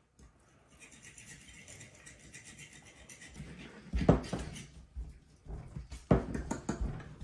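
Fork scratching through water and semolina flour on a wooden tabletop while pasta dough is kneaded by hand. Dough is pressed and knocked against the table, with two loud thumps about four and six seconds in.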